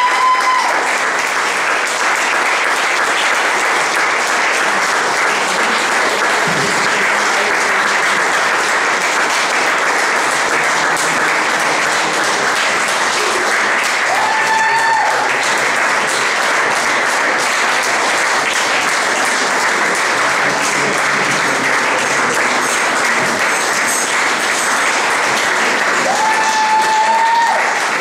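Audience applauding steadily in a hall after a folk band's song.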